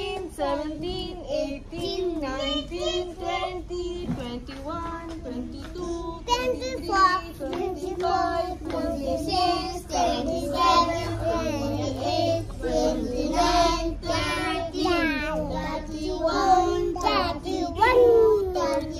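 Children singing a song, their voices continuous and at a steady volume throughout.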